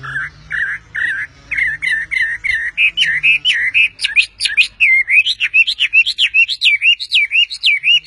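Chinese hwamei singing a loud, continuous song of repeated slurred whistles, about three to four notes a second. The song climbs higher and grows louder partway through, into sharp rising-and-falling whistles.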